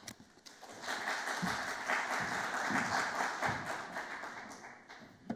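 Audience applauding. The clapping swells about a second in and dies away near the end.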